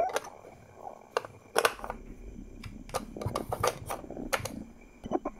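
Light wooden clicks and knocks, scattered unevenly, as a wooden toy garage is handled and its sliding door is pushed open.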